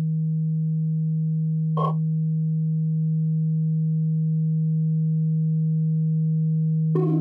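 A steady, loud, low electronic sine tone held throughout, with a fainter higher tone above it, broken by one short electronic blip about two seconds in and another sound entering near the end.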